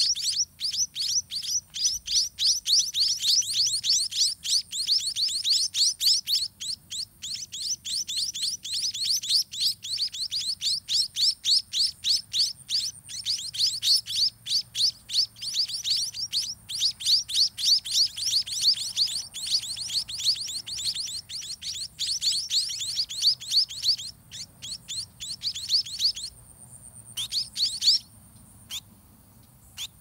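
White-rumped munia nestlings begging to be fed: a rapid, continuous series of short, high, thin chirps, several a second, while the parent feeds them by regurgitation. The chirps thin out and stop a few seconds before the end.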